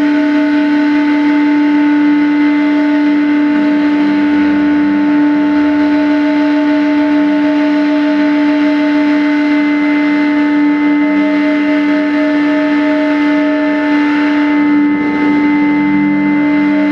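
Loud live drone music: several steady tones held together, the lowest the strongest, with one higher tone pulsing quickly through most of it and lower tones shifting near the end.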